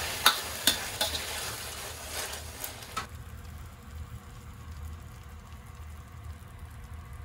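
Metal ladle clanking and scraping against a wok while eggplant and minced pork fry in sauce, over a steady sizzle. The clanks stop about three seconds in, and the sizzle goes on more faintly.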